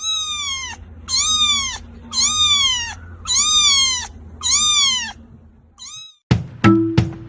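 A cat meowing: five long meows, each falling in pitch, about a second apart, then a short sixth. Near the end a beat of sharp drum-like strikes begins.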